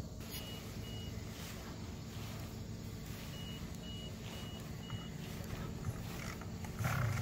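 Short electronic beeps at one steady high pitch, about two a second, sounding in two runs over a low steady hum.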